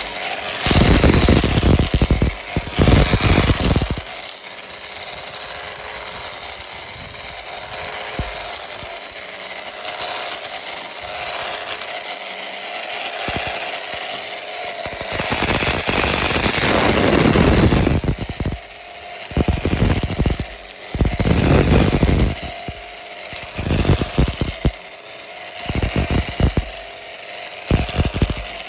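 A power tool stripping bark off a frozen log. The motor runs steadily throughout, and gets louder and rougher in bursts of one to three seconds each time it bites into the frozen bark. The longer bursts come near the start and in the middle, and shorter ones follow toward the end.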